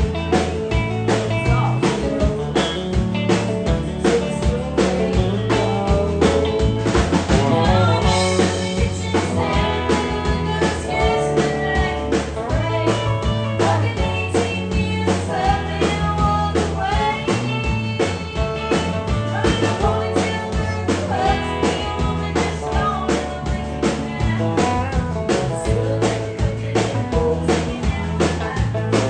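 Live band playing with a woman singing lead over acoustic and electric guitar and drums, at a steady beat.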